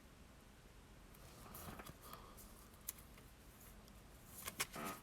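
Faint handling noise: soft rustling about a second and a half in, a single light click near the middle, and a few light clicks with rustling near the end.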